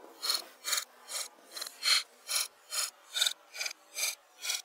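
A hand tool rasping on wood in steady, even back-and-forth strokes, a little over two a second.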